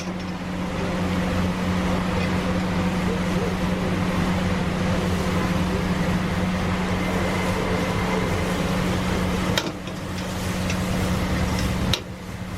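Steady mechanical hum over a noisy background, cut off abruptly twice near the end.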